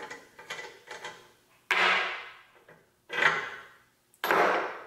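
Metal handling sounds as the arbor nut and outer flange come off a bench grinder's shaft and are set down on the bench. They come as three louder scraping, rattling sounds, each starting sharply and fading over about half a second, with a few lighter clicks before them.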